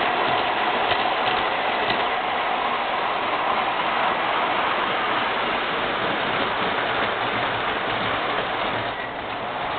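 MTH R40 model subway train running on its track: a steady rushing noise of wheels and motors, with a few sharp clicks in the first two seconds.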